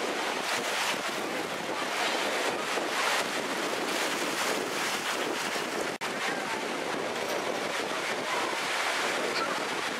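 Surf breaking and washing on a beach, a steady rushing noise with wind buffeting the microphone. The sound cuts out briefly about six seconds in.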